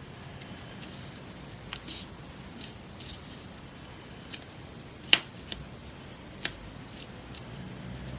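Scissors snipping and magazine paper being handled: scattered short, sharp clicks and light rustles, the loudest about five seconds in.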